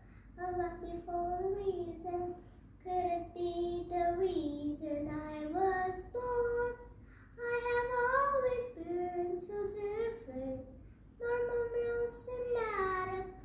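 A young girl singing alone, a wordless vocalise of held notes that slide between pitches, in short phrases with brief pauses.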